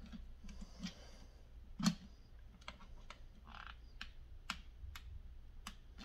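Hand screwdriver tightening the clamp screw of an iron sight on a rifle's picatinny rail: about ten light, irregularly spaced metal clicks, with a louder click about two seconds in and a short scrape a little after halfway.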